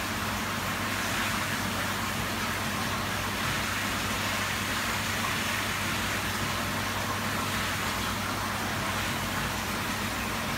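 Steady rush of water flowing through a pond filter (an Eric filter), with a low steady hum underneath.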